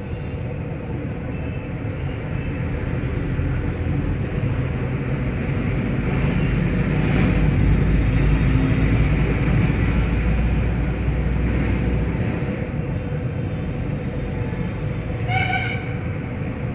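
Low rumble of a passing vehicle, building through the middle and easing off after about twelve seconds, with a short horn toot near the end.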